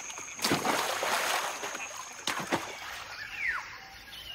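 A macaque splashing into a river: a sharp splash about half a second in with water spattering for about a second and a half, then a second, shorter splash about two seconds in. Near the end a single bird call glides down in pitch.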